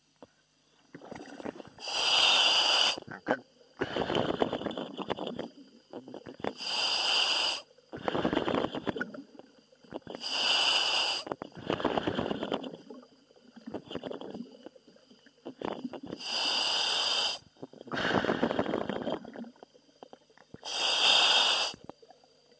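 A commercial diver breathing through the demand valve of a diving helmet, heard over the diver's radio: a hissing inhale through the valve followed by a rough, bubbling exhale, in a steady rhythm of about one breath every four to five seconds, five breaths in all.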